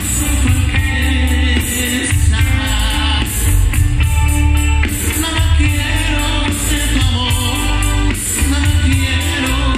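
Grupero band playing live through the stage PA: a sung lead vocal over strong bass and drums, with percussion, guitars, keyboard and saxophone in the mix.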